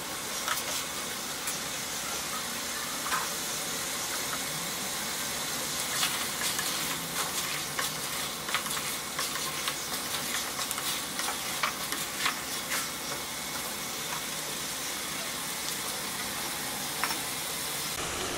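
Chicken pieces and coconut strips sizzling in a pan of spiced oil while a wooden spatula stirs them, with frequent short scrapes and clicks against the pan. The meat is being browned in the spice paste (kosha) before water is added.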